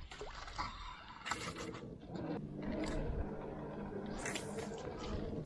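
Baitcasting reel being cranked to wind in line on a topwater frog retrieve: a steady whir of the reel's gears from about two seconds in, after a second or so of scraping and rustling from handling the rod.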